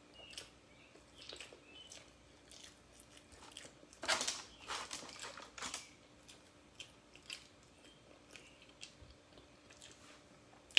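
A person chewing Domino's cheesy bread close to the microphone: soft wet chewing clicks, louder for a couple of seconds about four seconds in.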